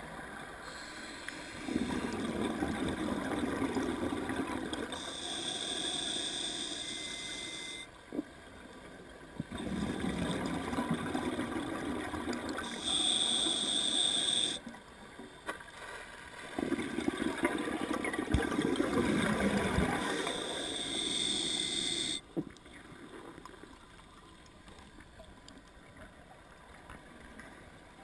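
Scuba diver's breathing heard underwater. There are three breath cycles, each with a rumble of exhaled bubbles and a hiss from the regulator. The last six seconds or so are much quieter.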